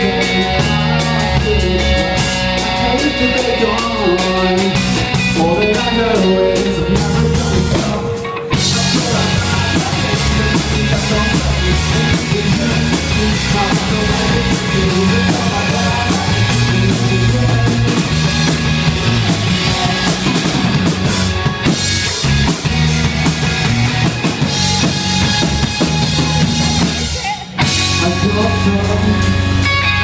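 Live rock music from a band: strummed acoustic guitar with drums and a sung vocal, loud and continuous, with two short breaks, about eight seconds in and again near the end.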